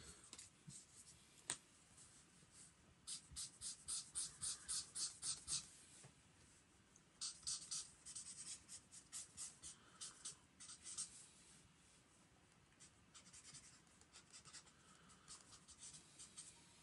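Felt-tip marker scribbling on sketchbook paper, colouring in a dark area with quick back-and-forth strokes of about five a second. The strokes come in two faint runs, about three and seven seconds in, with scattered lighter strokes near the end.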